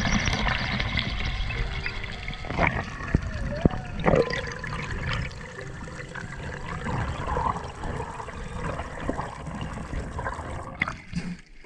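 Water sloshing and gurgling around a camera in the sea, with a few sharp clicks or knocks.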